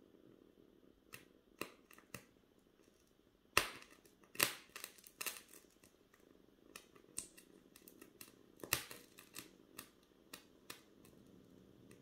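Open flame burning in a glass bowl, crackling and popping in irregular sharp snaps. The loudest snap comes a little over three and a half seconds in, with more around four to five seconds and near nine seconds.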